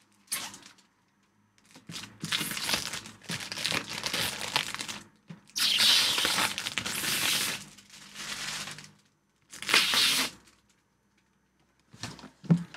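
Plastic packaging on a newly unboxed 3D-printer part crinkling and rustling as it is handled and pulled off, in about four bursts of a second or more with short pauses between; a short knock near the end.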